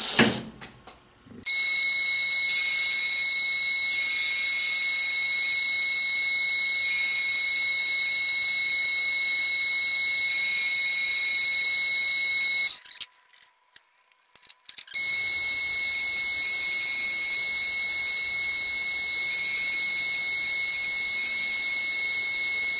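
Metal lathe at 460 RPM facing the end of a grade 5 titanium bar: a loud, steady, high-pitched whine from the cut. It starts suddenly about a second and a half in, drops out for about two seconds a little past the middle, then carries on unchanged.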